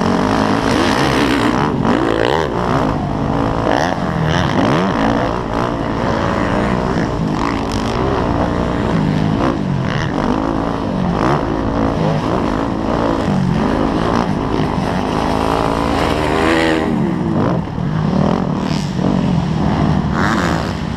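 Motocross dirt bike engine revving hard, its pitch rising and falling again and again as the rider accelerates, shifts and backs off around the track.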